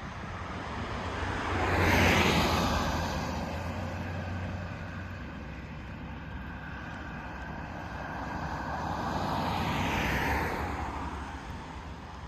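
Norfolk Southern freight train passing: a steady low diesel locomotive engine drone, with wheel and rail noise that swells up and fades twice, loudest about two seconds in and again about ten seconds in.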